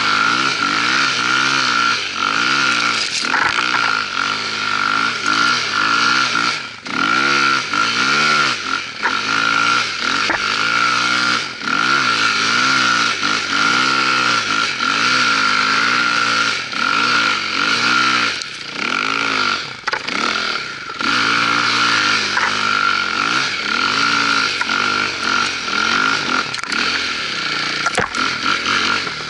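Dirt bike engine revving up and down again and again, hard under load in deep snow, dipping briefly a few times, with a steady high whine running over it.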